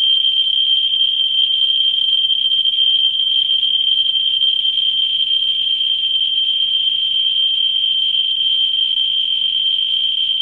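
Ludlum Model 3 survey meter's audio clicker, fed by a 44-9 pancake probe over torbernite uranium ore, counting so fast that the clicks merge into a steady high-pitched buzz. The very high count rate is the sign of strong beta and gamma radiation from the specimen. The buzz eases slightly as the probe is lifted away from the ore.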